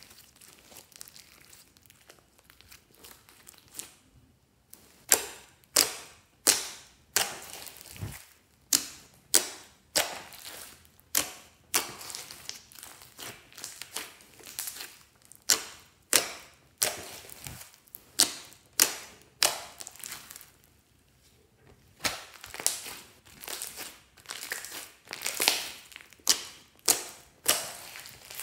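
Hands squishing and pressing glossy slime with small foam beads mixed in: soft crinkling at first, then a run of sharp, wet pops and crackles about two a second, with a short break about twenty seconds in.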